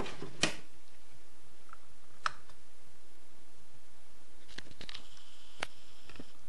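A few sharp small clicks and taps as small steel bolts and tools are handled on a workbench, the loudest about half a second in. A faint high whine runs for about two seconds near the end.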